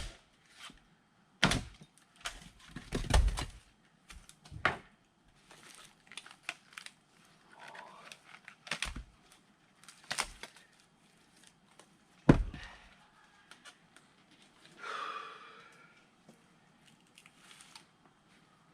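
Firewood being split by hand with an axe: irregular sharp wooden knocks and cracks, several with a heavy low thud, the strongest about a second and a half, three seconds and twelve seconds in.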